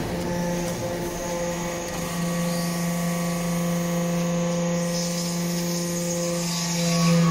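Hydraulic power unit of a brass-chip briquetting press running with a steady hum.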